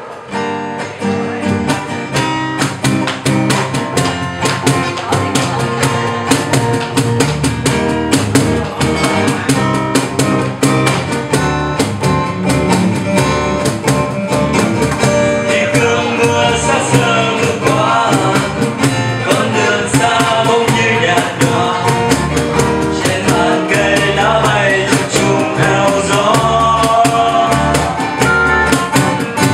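Music: the cover of a Vietnamese pop song, with guitar and a steady rhythm from the start. A wavering melody line comes in about halfway through.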